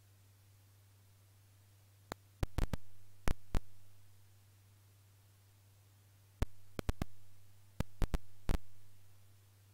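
Computer mouse button clicks, sharp and separate, in two bursts: about two to four seconds in, and again from about six and a half to eight and a half seconds, over a steady low hum.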